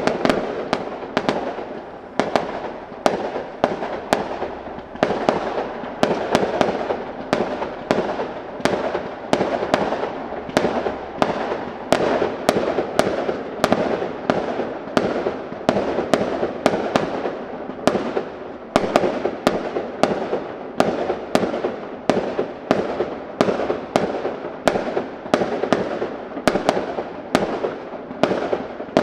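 Aerial fireworks display: a rapid, steady run of sharp bangs, about two a second, each trailing off into the next.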